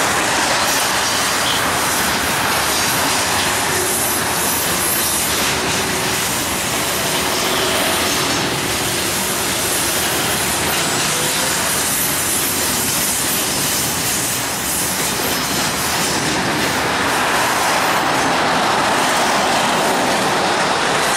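Container wagons of a freight train rolling past, a steady continuous noise of steel wheels on the rails.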